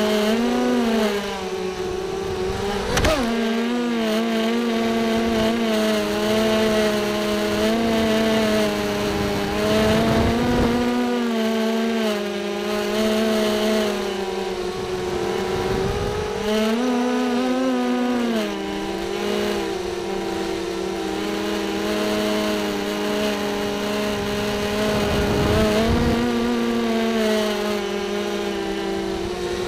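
FPV racing quadcopter's electric motors and propellers whining, heard from the drone's onboard camera, the pitch rising and falling smoothly as the throttle changes. A sharp knock comes about three seconds in, and brief low rumbles of wind buffet the microphone now and then.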